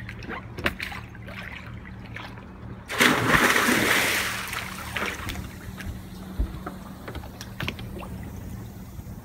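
A person jumping into the sea: one loud splash about three seconds in, then water sloshing and settling for a couple of seconds. A few small knocks come before it, and a steady low hum runs underneath.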